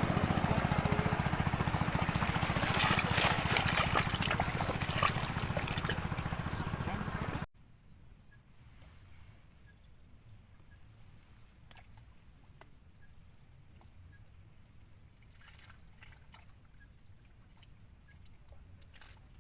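A small engine running steadily close by, cut off abruptly about seven seconds in. Then quiet outdoor background with a steady high-pitched whine and a few faint clicks.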